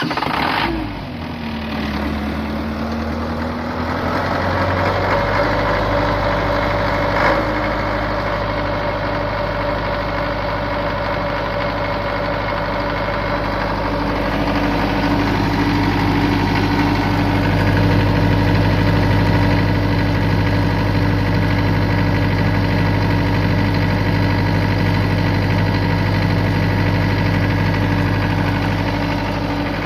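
Isuzu diesel engine of a 25 kVA silenced generator set having just started. Its speed dips and rises over the first few seconds, then it runs at a steady speed. A single click comes about seven seconds in.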